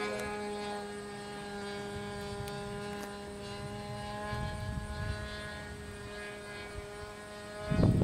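Radio-controlled model airplane flying overhead, its engine and propeller giving a steady drone at an even pitch. A loud low rumble breaks in near the end.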